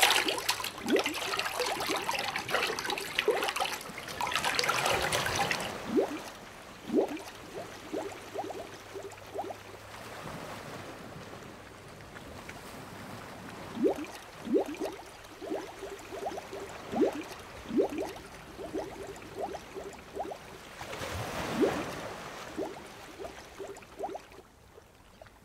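Water bubbling and gurgling: a run of short bubble blips, with a hissing rush of bubbles for the first several seconds and again about three quarters of the way through.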